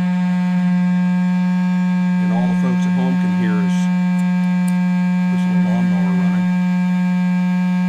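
Pipe King pipe-smoking machine's electric air pump humming steadily as it draws air through a corncob pipe, a loud, even electric buzz.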